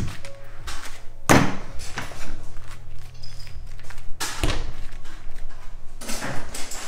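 Two heavy thumps, about a second in and again about three seconds later, over a steady low hum, with a stretch of rustling handling noise near the end, as a mass of candy is handled and set down on the candy-making work table.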